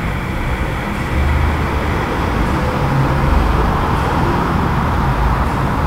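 Steady background noise with no speech: a low rumble with a hiss over it, growing slightly louder about a second in.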